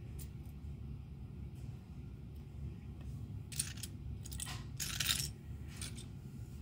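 Loose LEGO pieces clattering as a hand rummages through a pile of them: a few light clicks, then louder rattling from about three and a half to five seconds in.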